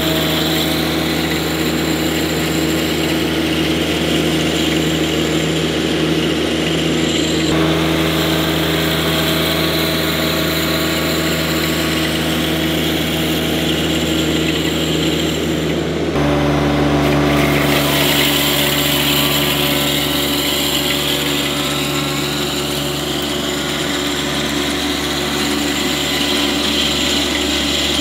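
John Deere 1025R compact tractor's three-cylinder diesel running steadily under load as it drives across the lawn with a three-point spreader mounted. The engine note shifts once, about halfway through.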